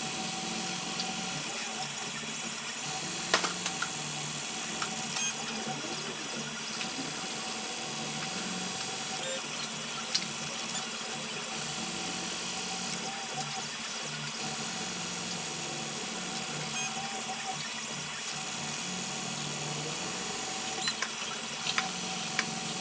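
LulzBot 3D printer printing: its stepper motors whine in short tones that keep changing pitch as the print head and bed move, over a steady fan hiss, with a few faint clicks.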